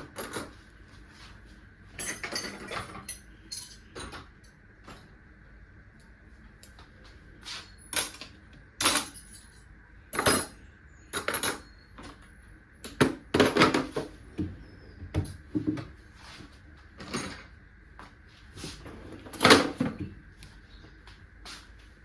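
Kitchen clatter: dishes, pans and utensils knocked and set down, about a dozen separate knocks at irregular intervals, with a faint steady hum underneath.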